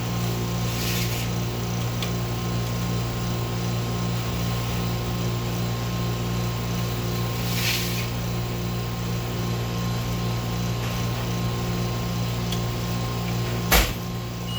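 Steady hum of commercial kitchen machinery, with two short hisses and one sharp knock near the end.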